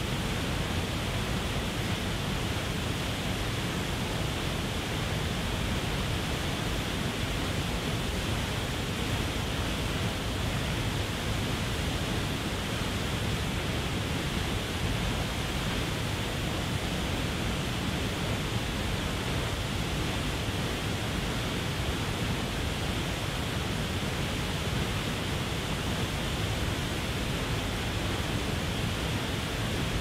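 Waterfall pouring over a rock ledge into the pool below: a steady, unbroken rush of falling water with no change in level.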